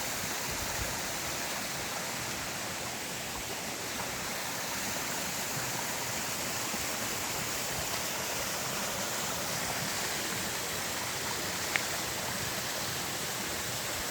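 Small waterfall with a steady, even rush of falling and splashing water. A single brief click about twelve seconds in.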